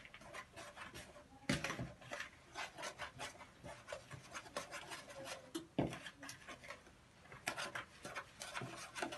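Crumbly cookie dough of flour, starch, ground hazelnuts, oil and cocoa being mixed in a bowl: quick, uneven scraping and rubbing strokes, a few of them louder.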